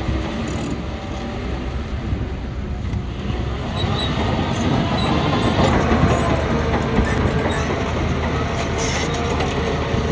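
Shantui DH17 crawler bulldozer working, its diesel engine running under load with the steel tracks clanking and rattling; the noise swells a little about halfway through.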